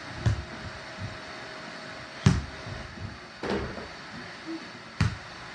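Four short thuds and knocks, the loudest and sharpest about two seconds in, from a child running, jumping and shooting a small ball at a mini basketball hoop: feet landing on the floor and the ball striking.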